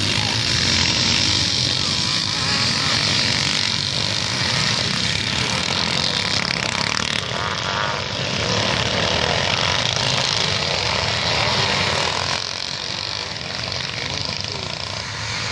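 A pack of motocross motorcycles racing, many engines revving together in a dense buzz that eases off somewhat about twelve seconds in as the bikes move away.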